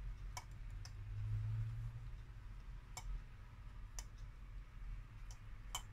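A fork clicking lightly against a white serving bowl, five or six separate sharp clicks, as sliced red pepper strips are pushed off it onto a platter of pasta.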